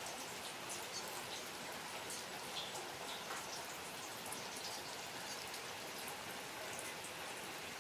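Steady rain falling on wet ground and puddles: an even hiss with many small ticks of individual drops.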